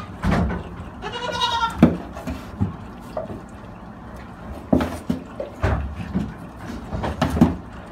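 Goat kids feeding from hand-held bottles: one kid bleats once, about a second in, among scattered knocks and scuffles.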